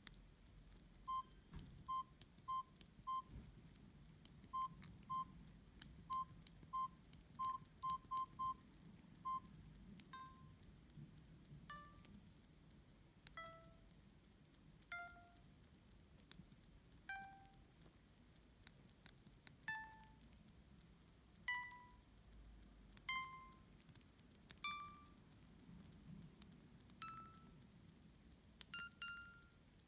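Samsung GT-E1170 mobile phone beeping: about a dozen short beeps at one pitch at uneven intervals, then, from about ten seconds in, single fading tones at changing higher and lower pitches, roughly one every second and a half.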